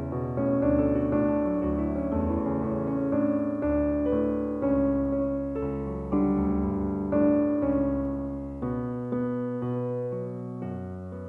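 Slow piano music: single notes and chords struck and left to ring, dying away near the end.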